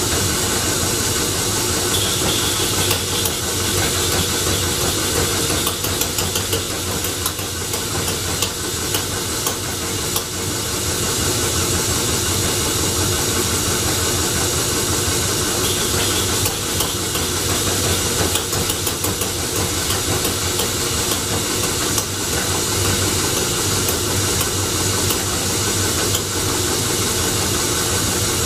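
Homemade Scotch yoke flywheel engine being turned over on a belt by a motor, running steadily with a hiss, trying to fire but not running on its own. The builder puts this down mostly to timing and carburetion.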